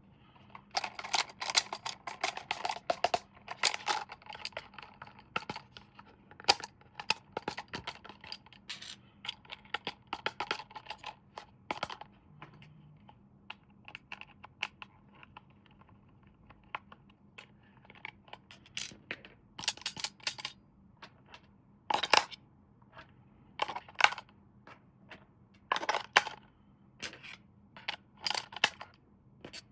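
Hands unboxing and handling plastic toys and packaging: rustling and crinkling for the first few seconds, then scattered sharp clicks and taps, some in quick clusters.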